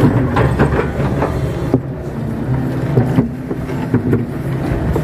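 Kato crawler excavator's diesel engine running steadily, heard from inside the cab, with scattered knocks as the bucket works wet mud.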